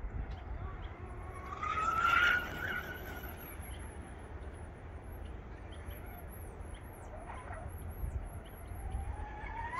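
Electric RC speed boat's motor whining from out on the water, rising in pitch about two seconds in and again near the end, over a steady low rumble. Small birds chirp high and repeatedly throughout.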